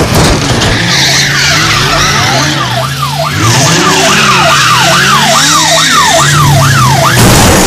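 Sound effects of a car engine running with tyres screeching, under a police siren that sweeps up and down, slowly at first and then in a fast yelp about twice a second.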